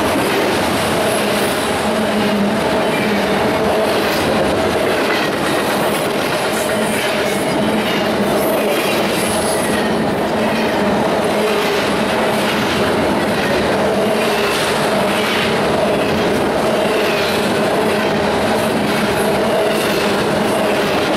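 Double-stack intermodal container train's well cars rolling past at track side: a steady, loud rumble and clatter of steel wheels on rail.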